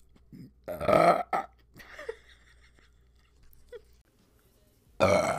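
A woman burping: one long, loud burp about a second in, and another loud burp starting near the end.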